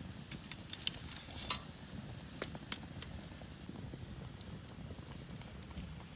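Burning firewood crackling and popping in a metal fire stand, with scattered sharp pops: a cluster in the first second and a half, then single pops about two and a half and three seconds in. Metal tongs click against the logs and the stand during the first cluster.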